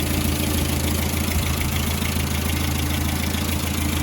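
The 2.25-litre four-cylinder petrol engine of a 1962 Land Rover Series IIa 109, warm and idling steadily, running sweetly.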